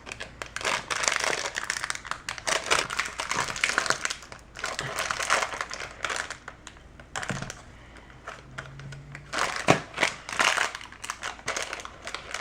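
Small plastic fruit-snack pouch crinkling as it is twisted and pulled at in a struggle to get it open, with a sharp snap near the end.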